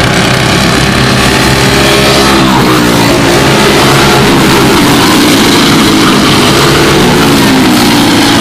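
Several Briggs & Stratton Animal four-stroke single-cylinder kart engines racing, loud and continuous. Their overlapping pitches rise and fall as the karts accelerate and pass close by.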